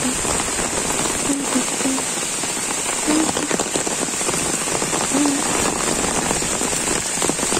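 Heavy rain falling steadily on dense leaves and a paved road, an even downpour hiss.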